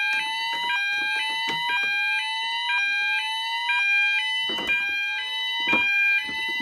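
Several fire alarm sounders going off together: a rising sweep repeating about once a second over a two-tone warble and a steady high tone. The alarm was set off by smoke-test spray on a detector. Clicks and knocks of the detector being handled come through, strongest in the second half.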